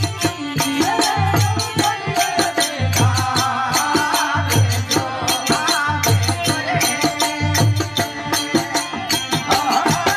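Rajasthani devotional bhajan sung by a man to his own harmonium, with percussion keeping a steady beat of quick clicks and low thumps.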